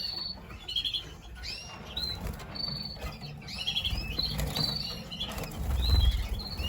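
A room of caged young colour canaries chirping, with many short, high, overlapping calls and wings fluttering in the cages.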